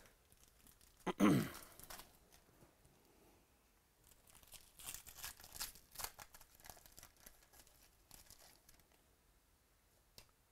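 Foil wrapper of a trading-card pack being torn open and crinkled by hand, a run of crackly tearing from about four seconds in to nearly nine. A short sound falling in pitch about a second in, and a single click near the end.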